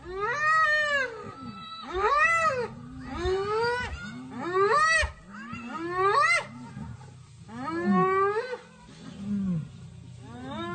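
Spotted hyenas in a fight with a lioness: a run of yelping calls, about one a second, each rising and then falling in pitch, over low growling.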